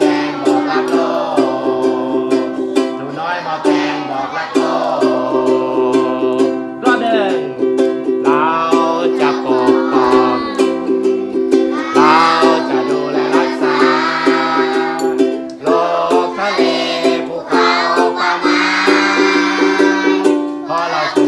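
A group of children singing a song together in unison, accompanied by a steadily strummed ukulele.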